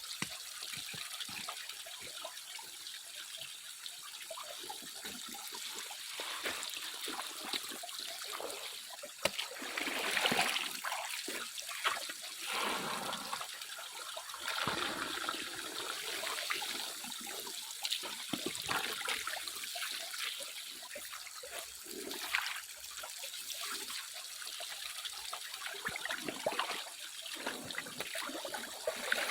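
Water trickling and splashing steadily, with irregular louder splashes now and then.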